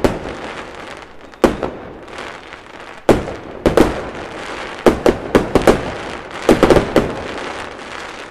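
Fireworks going off: a dozen or so sharp bangs, several in quick clusters, with a crackling hiss between them.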